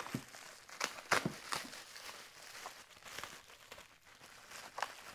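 Plastic bubble wrap crinkling and crackling as it is handled and pulled around a wrapped part, in irregular bursts that are loudest about a second in and die away near the end.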